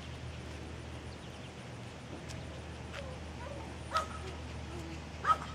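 Havanese puppy giving two short yips, one about four seconds in and one near the end.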